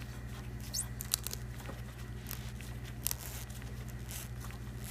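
Small rubber vacuum hose being worked off a plastic check-valve fitting: scattered small scrapes and clicks, with a sharp click about a second in and another about three seconds in, over a steady low hum.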